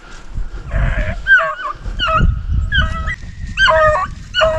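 A pack of beagles giving tongue on a rabbit's trail: several hounds' repeated cries overlapping, starting about a second in. The baying means the dogs are running the rabbit, which has circled back toward the hunters.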